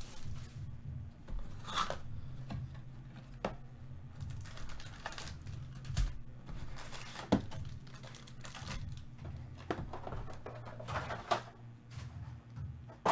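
A cardboard trading-card box being opened and its foil-wrapped card packs pulled out and set down, with crinkling wrappers and scattered taps and clicks over a low steady hum.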